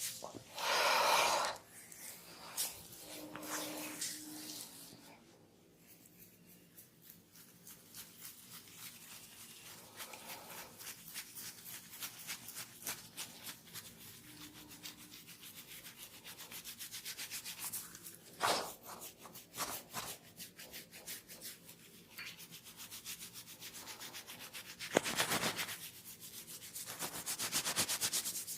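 Hands rubbing fast over skin and hair in a head and neck massage: a dense run of quick rubbing strokes that grows louder for short spells about a second in, past the middle, and near the end.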